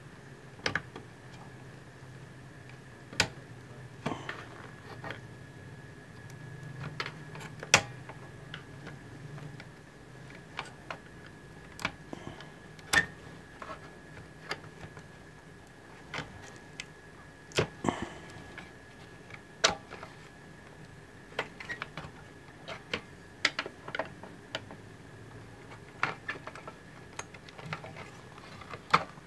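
Irregular small clicks and knocks from hands working plastic wire connectors loose from the circuit boards inside an inverter welding machine's metal chassis. A faint steady high tone sounds behind them.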